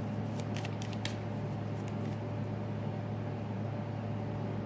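Steady low electrical hum over faint room noise, with a few faint clicks in the first second.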